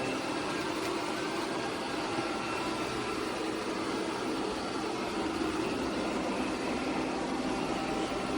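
eufy Omni C20 robot vacuum running, its motor giving a steady hum with a few faint whining tones over an even rush of air.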